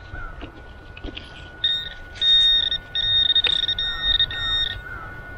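Handheld metal-detecting pinpointer sounding a series of about five electronic beeps, each up to half a second long, starting under two seconds in, as it is worked over a target in the dug hole. The beeps signal that the buried metal object is close to the probe tip.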